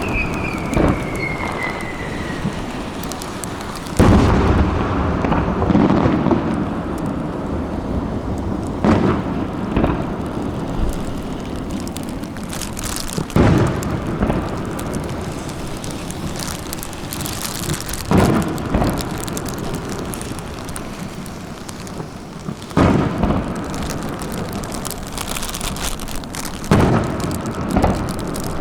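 Fireworks display: aerial shells bursting in a series of loud bangs about every four to five seconds, with continuous rumbling and crackling in between. A whistling shell's falling whistle dies away in the first couple of seconds.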